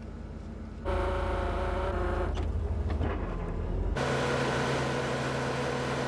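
Motor vehicle engines running steadily. The sound changes abruptly about a second in and again about four seconds in, going from a low rumble to a higher, whining engine note and then to a lower steady hum.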